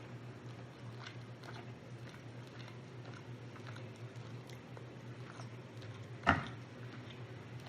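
A person chewing and eating rotisserie chicken close to the microphone, with small wet mouth clicks and one sharper, louder sound about six seconds in, over a steady low hum.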